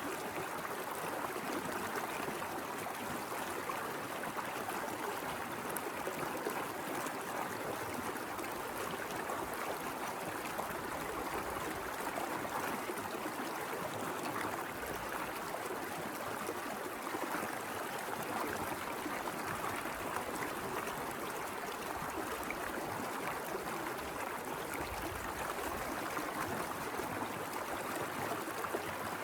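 Small mountain river flowing steadily, a constant rush and burble of water.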